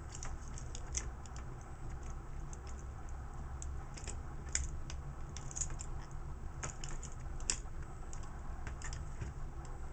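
Irregular small plastic clicks and knocks as the parts of a Transformers Deluxe Class Sideswipe action figure are moved and snapped into place by hand, over a low steady hum.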